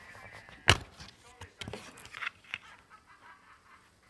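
Hard plastic DVD case being handled: one sharp click or snap, then several lighter clicks and rustles.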